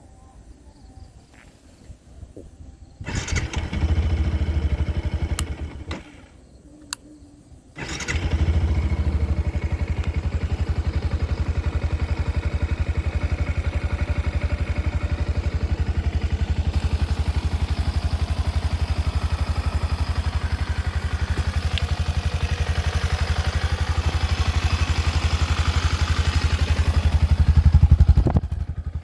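Yamaha WR155's single-cylinder four-stroke engine starting about three seconds in, running briefly and stopping, then starting again and idling steadily. The revs rise briefly near the end before falling back.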